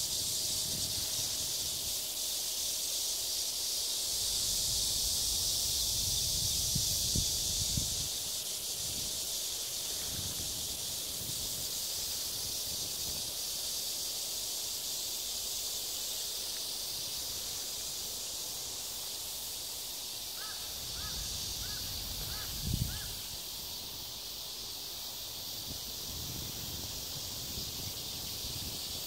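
Outdoor garden ambience: a steady high-pitched insect chorus, with low rumbles of wind or handling on the microphone. There is a short run of five quick chirps about twenty seconds in, and a bump on the microphone soon after.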